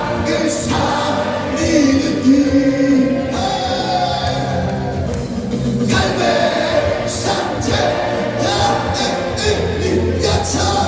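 Voices singing together with music, in a choral gospel style, with some long held notes.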